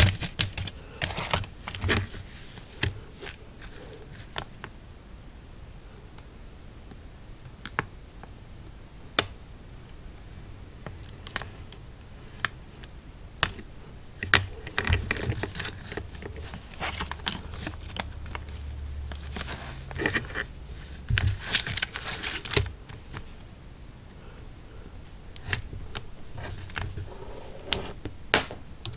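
A model kit box being opened and its contents handled: irregular light taps, clicks and rustling of packaging and parts, with a few louder knocks.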